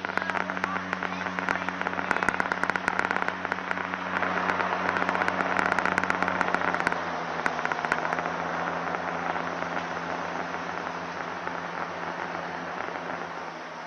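Gulfstream Turbo Commander's twin Garrett TPE331 turboprops running during the landing rollout: a steady low drone under a rushing noise, with dense crackling in the first half. The rush swells for a few seconds mid-way and then eases off as the aircraft slows.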